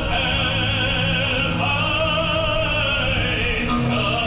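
Operatic singing over an orchestra: a voice holding long notes with a wide vibrato, the note changing about one and a half seconds in and again near the end.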